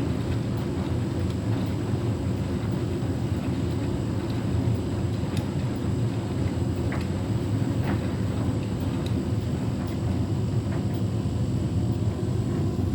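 Beko WTK104121W washing machine running, its motor turning the drum loaded with wet flannelette bedding in a steady low hum, with a few faint clicks. The drum is working a tangled load that the owner says is unbalanced.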